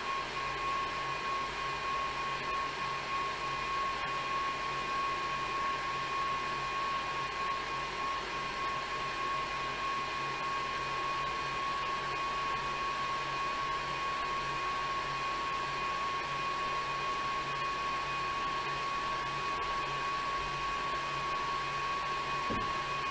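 Bicycle on an indoor trainer whirring under hard, steady pedalling at a cadence above 90 rpm, with a constant high whine over the rushing noise.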